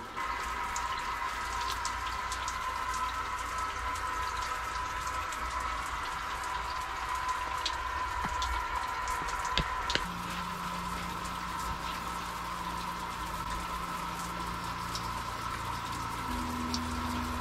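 Water spraying steadily from an outdoor shower and splashing onto the wooden floor, with a few sharp taps and drips.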